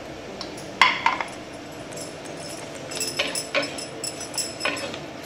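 A spatula stirring in a clay kadhai, knocking and scraping against the pot's side as chopped onion, garlic and ginger fry in oil. There is a loud cluster of two or three knocks about a second in, then a run of lighter taps and scrapes from about three seconds on.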